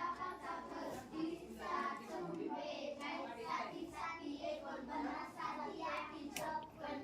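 A child's voice singing, faint in the background.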